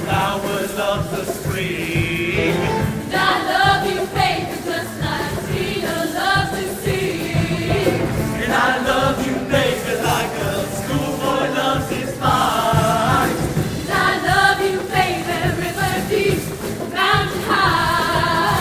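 High school show choir singing a song in many-voiced harmony, with musical accompaniment underneath.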